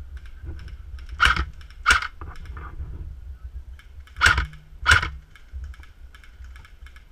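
Four sharp, close cracks of airsoft gunfire in two pairs, the first pair about a second in and the second about four seconds in, with fainter clicks between.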